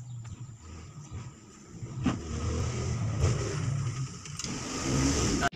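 A motor vehicle's engine running, a low rumble with a hiss that grows louder near the end.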